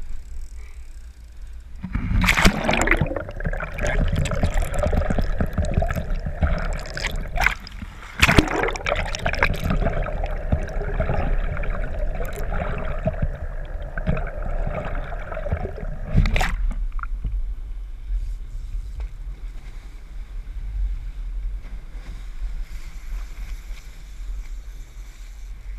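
Sea water gurgling and sloshing around a camera dipped under the surface, with sharp splashes about two, eight and sixteen seconds in. After the last splash it drops to a quieter steady low rumble of the boat on the water.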